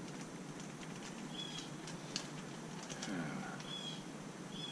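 A small bird giving short high chirps every second or two, with a few light clicks.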